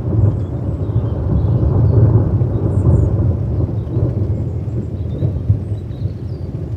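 A long, low roll of thunder over steady rain. It swells about two seconds in, then slowly dies away toward the end.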